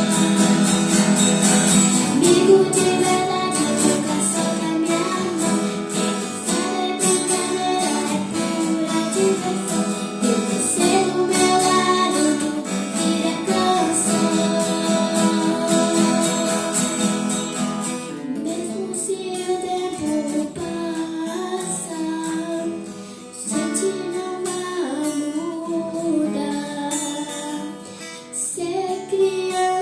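Acoustic guitar accompanying a female voice singing a song.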